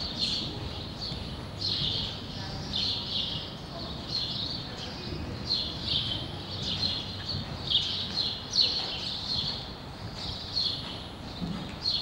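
Warmblood gelding's hooves beating on the sand footing of an indoor arena as it trots and canters, with small birds chirping on and off over it.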